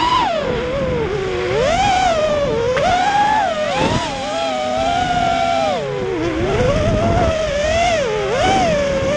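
Electric motors and propellers of an FPV quadcopter drone whining in flight. The pitch swings up and down constantly with the throttle, dipping sharply a few times.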